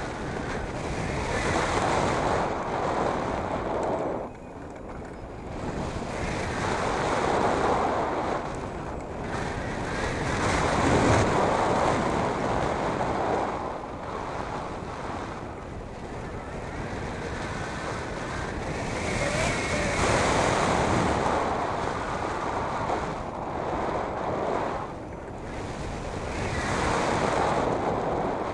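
Wind rushing over the microphone of a hang glider in flight, a dense rushing noise that swells and eases every few seconds.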